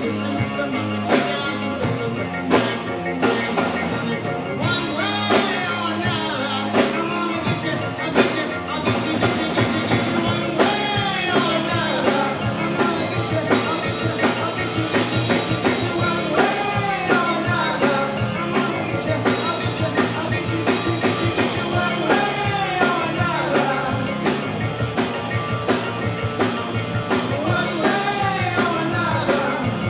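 Live rock band playing through a PA: drum kit, electric guitars and bass with a steady beat. The lead singer's vocal comes in about five seconds in.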